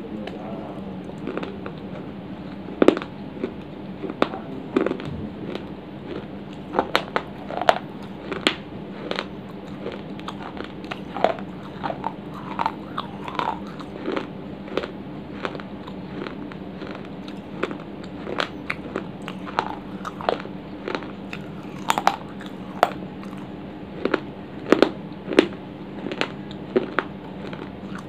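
Close-up biting and chewing of dry clay pot pieces: irregular sharp crunches, several a second at times, over a steady low hum.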